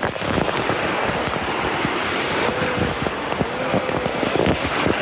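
Small surf washing on a sandy beach, mixed with wind buffeting the microphone.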